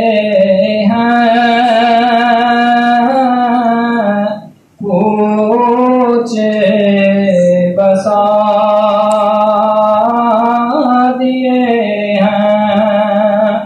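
A man's voice singing an Urdu naat unaccompanied into a microphone, drawing out long, held notes. He breaks briefly for breath about four and a half seconds in.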